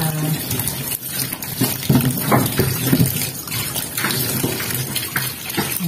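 Tap water running into a stainless steel sink while shallots, garlic and chillies are rinsed by hand, with scattered light knocks as the vegetables are handled against the steel.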